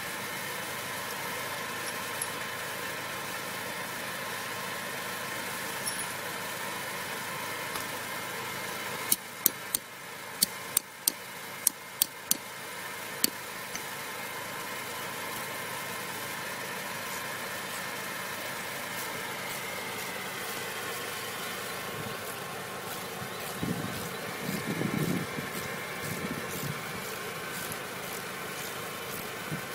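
A steady engine hum runs throughout. About nine seconds in comes a quick run of about eight sharp knocks over some four seconds: a hammer driving anchor bolts into a rubber speed hump. Later, a few seconds of low rattling come as a bolt is turned with a hand wrench.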